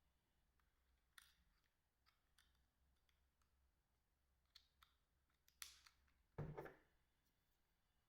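Faint, scattered clicks of a Binatone BB200 mobile phone's keypad buttons being pressed to step through its menu, with one duller, louder knock about six and a half seconds in.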